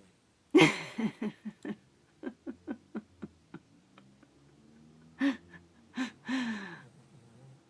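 A person bursting into laughter: a loud first burst, then a quick run of short pitched ha's that slows and fades, and a few more laughs, the last one drawn out and falling.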